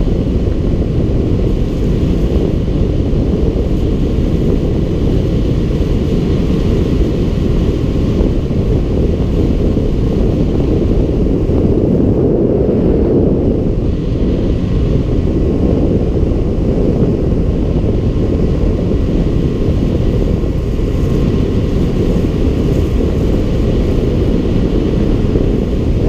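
Speedboat engine running steadily as the boat travels at speed, with wind buffeting the microphone.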